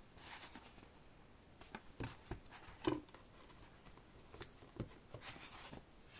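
Faint handling of an album's CD and paper packaging: soft rustling and sliding near the start and again about five seconds in, with a few light taps and knocks as items are set down and picked up, the loudest about three seconds in.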